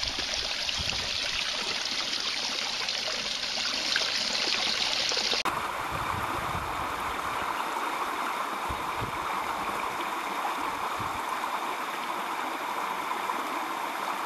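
Water from a pitcher-pump fountain spout running steadily and splashing into a concrete basin. About five seconds in, the sound changes abruptly to a lower, fuller rush of water.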